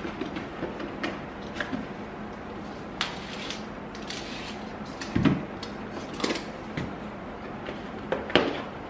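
Scattered clicks and knocks of containers and utensils being handled and set down while slime ingredients are mixed, with a louder thump about five seconds in.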